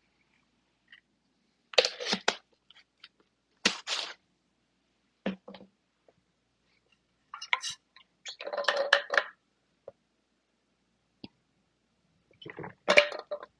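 Mouth noises of a person eating dry creatine powder: short, irregular bursts of chewing and smacking with quiet gaps between them, then gulps of water from a bottle near the end. The AirPods microphone in his ear picks them up close.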